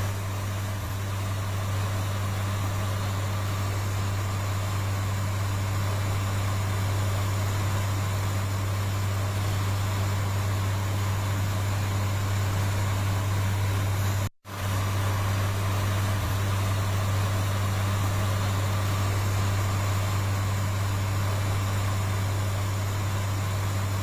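A steady mechanical drone: a strong, unchanging low hum with a hiss over it. It cuts out for a split second about fourteen seconds in, then carries on the same.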